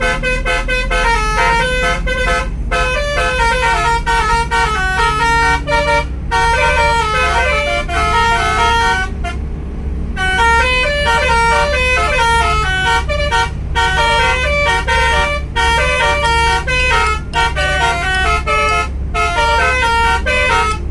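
Telolet basuri bus horn playing a melody as a quick run of stepped horn notes, pausing briefly every couple of seconds and longest just before halfway, over the low steady rumble of the bus.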